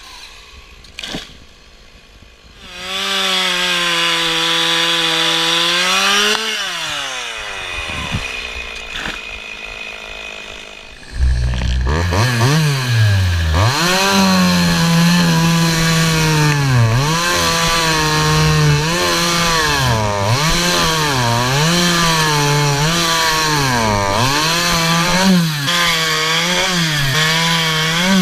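Two-stroke chainsaw running at full throttle, then its pitch falls away as the throttle is released. About eleven seconds in, a chainsaw revs up loud and runs at full throttle through a cut, its pitch dipping every second or two as the engine bogs under load.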